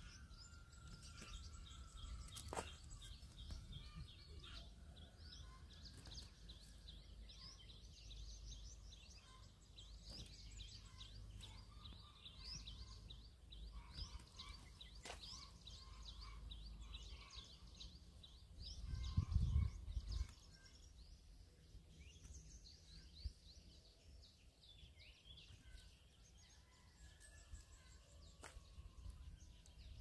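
Small birds chirping in quick, high, falling notes throughout, over a faint low rumble, with a short louder low rumble about two-thirds of the way in and a few sharp clicks.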